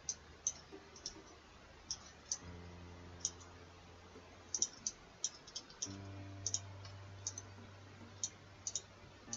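Computer mouse clicking, about twenty short, sharp clicks at irregular intervals, as vertices are selected and dragged. Underneath runs a faint, steady low hum that shifts pitch twice.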